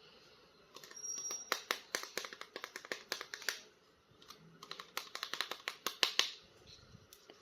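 Rapid plastic clicks and crackles from an action figure and its packaging being handled and unboxed, in two runs of a few seconds each.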